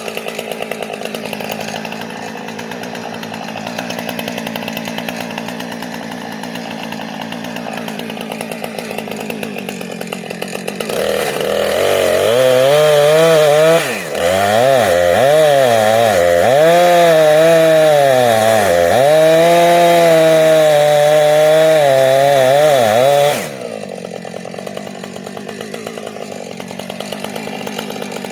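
Two-stroke chainsaw idling, then opened up to full throttle about eleven seconds in and cutting into a dead ash tree for about twelve seconds. Its pitch dips and recovers as the chain bites, and it drops back to idle near the end.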